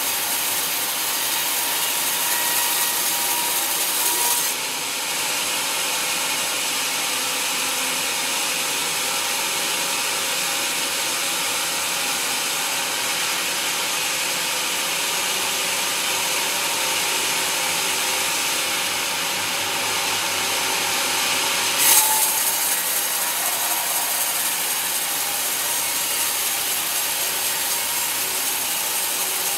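Sawmill band saw blade cutting lengthwise through a teak log: a steady sawing hiss with a faint whine. The hiss turns duller about four seconds in, then brightens again after a single sharp knock about 22 seconds in.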